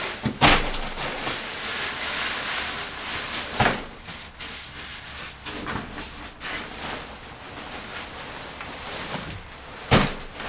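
Sleeping bag and its stuff sack rustling as they are pulled out and spread over a sleeping mat, with sharper thumps about half a second in, near four seconds and near the end.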